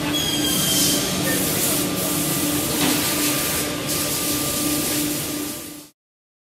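QUICK CNC router with an air-cooled 9.6 kW HSD spindle, milling a sheet of board. A steady hissing whine with a low hum that pulses about twice a second; it cuts off suddenly near the end.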